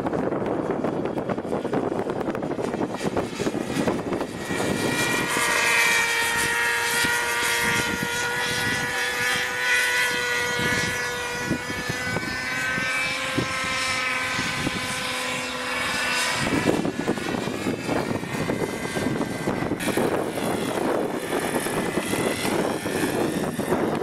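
Radio-controlled model helicopter flying in strong wind, with wind buffeting the microphone. From about five seconds in, the helicopter's motor and rotors give a steady whine, which cuts off abruptly about two-thirds of the way through.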